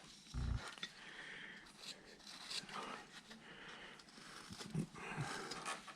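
A hand carving tool slicing and shaving wood: faint, irregular scraping cuts, with a short low bump about half a second in.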